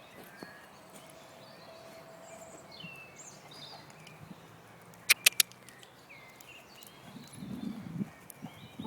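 Small birds chirping now and then outdoors. Three sharp clicks come in quick succession about five seconds in, and irregular low thuds of horse hoofbeats build near the end.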